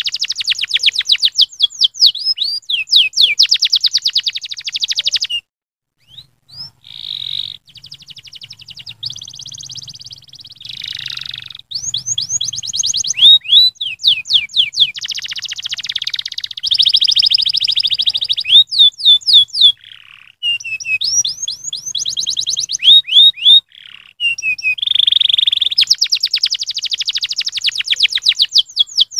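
Domestic canary singing: long rolls of very rapid trilled notes alternating with fast down-sweeping whistles, broken by short pauses about five seconds in and again about twenty-four seconds in.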